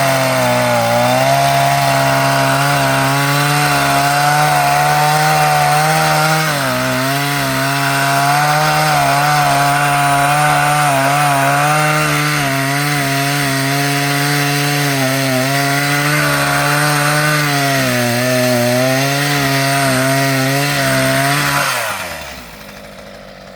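Chainsaw held at high revs cutting through wood, its pitch dipping briefly twice, then dropping back to idle about two seconds before the end.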